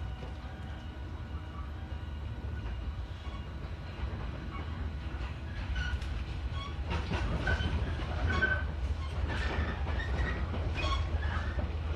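Cabin sound of a JNR 115-series DC electric train under way: a steady low rumble of the traction motors and running gear. From about halfway through, rattling and clacking of the wheels over rail joints and points joins in with short squeaks, and the noise grows louder.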